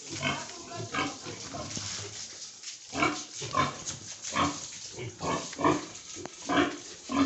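Pigs calling: a string of short grunts and squeals, coming in a quick run about once every two-thirds of a second from about three seconds in.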